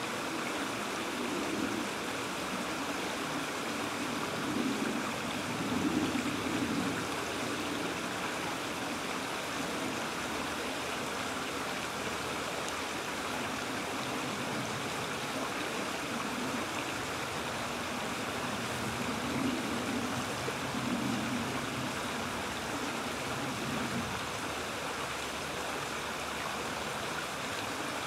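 Shallow creek water running over a riffle, a steady rushing babble, with a few short low swells in the first quarter and again past the middle.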